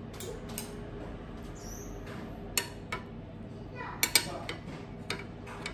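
Metal serving spoons clinking against stainless steel serving dishes as they are set into the salads: a series of sharp clinks in the second half, loudest about four seconds in. Underneath, a steady hum from a running dishwasher and oven.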